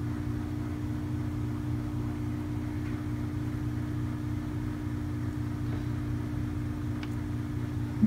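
Steady low mechanical hum at a constant pitch, like a running appliance motor or fan, with a few faint ticks.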